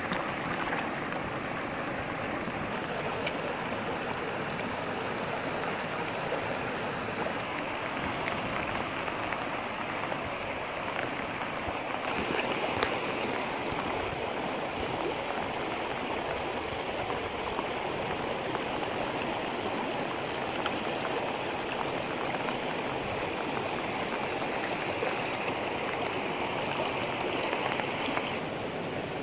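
Steady rush of a shallow river flowing over stones: a constant, even water noise that shifts slightly in tone a few times.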